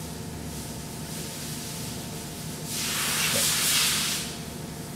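A burst of hiss about a second and a half long, starting a little past halfway, over a steady low background hum.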